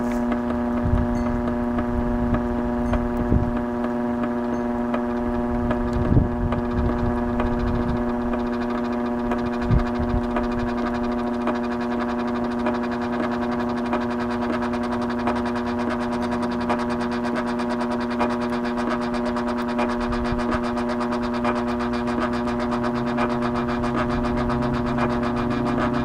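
Eureka Edge Kleener upright vacuum cleaner's motor running steadily, a constant hum with overtones that holds the same pitch throughout, with a few low thuds, the strongest about six seconds in.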